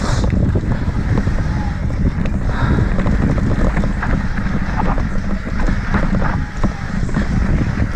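Mountain bike riding fast down a dry, rocky dirt trail: knobby tyres crunching over dirt and loose rock and the bike rattling over the bumps, with wind buffeting the microphone.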